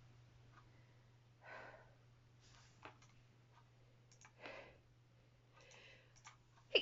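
A woman breathing softly in a small room: four quiet breaths, about a second or two apart, with a couple of faint clicks and a steady low hum underneath.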